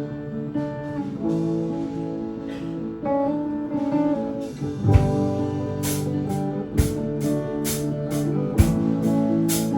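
A rock band playing live: guitar chords ring out alone, then the drum kit comes in about halfway through with deep thumps and a steady beat of sharp cymbal strokes.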